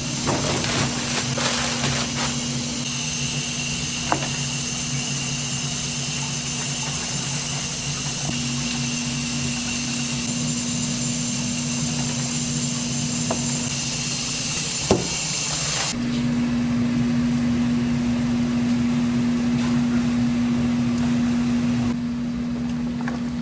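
A steady machine hum with a hissing noise over it; the hiss stops about two-thirds of the way through while the hum carries on, with an occasional single knock.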